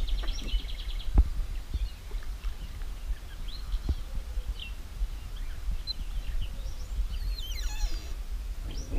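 Birds chirping on and off over a low wind rumble on the microphone, with a falling bird call a little before the end. A spinning reel clicks rapidly for about the first second as a hooked bass is played.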